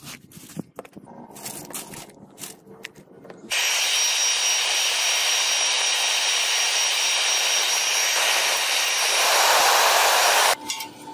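Gas torch blasting a steady, loud rushing hiss into a pile of lump charcoal to light it, starting suddenly about three and a half seconds in and cutting off suddenly near the end, with a faint high whine. Before it come a few clicks and knocks of charcoal lumps being set in place.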